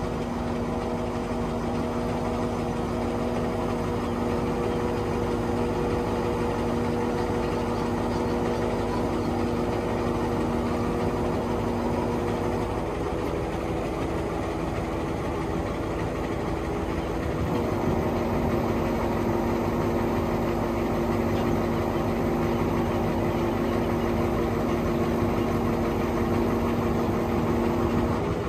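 Engine of the crane lifting a sailing yacht in slings, running steadily throughout; its note shifts about halfway through and it runs a little louder from about 18 seconds in, as the crane works the load.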